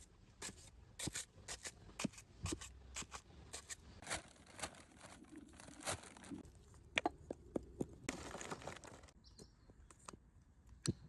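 Close-up handling sounds: a run of sharp clicks and taps, with two stretches of rustling, tearing noise, about four seconds in and again near eight seconds.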